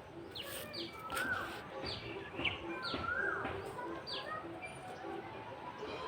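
Birds chirping: a run of short, quick notes sliding downward, repeated every half second or so, mixed with lower whistled notes that rise and fall, over a steady background hum.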